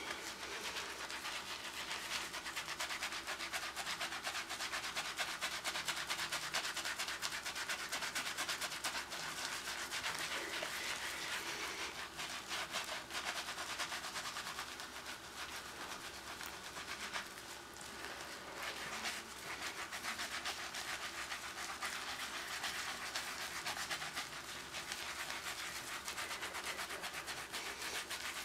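Hands being scrubbed hard, a continuous rapid scratchy rubbing against the skin that eases off a little midway and picks up again.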